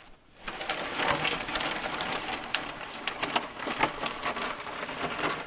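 A heavy lathe on a wooden skid being pushed along on PVC pipe rollers over stony dirt: dense crunching and crackling of grit and pebbles under the rollers, with many sharp clicks, starting about half a second in.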